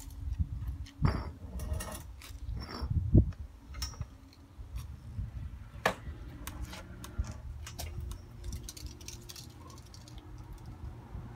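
Rattling, clicks and knocks of a home-made hand-truck vacuum slab lifter as it is wheeled over a paving slab and its suction pad is set down. The knocks are bunched in the first few seconds, the loudest about three seconds in, with sparser clicks after, over a steady low rumble.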